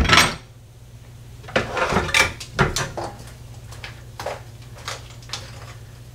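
Metal tongs turning chunks of carrot, potato and beef in a stainless steel pot: a few loud clatters and scrapes in the first three seconds, then lighter clicks, over a steady low hum.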